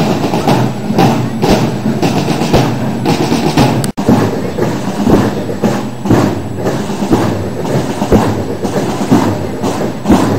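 Parade drums beating a steady marching rhythm, about two strokes a second, with a brief break in the sound about four seconds in.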